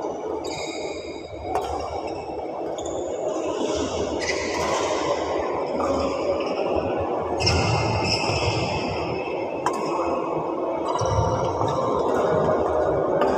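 Badminton rally: sharp racket hits on the shuttlecock a few seconds apart and short high squeaks of shoes on the synthetic court, echoing in a large hall over a steady background hum.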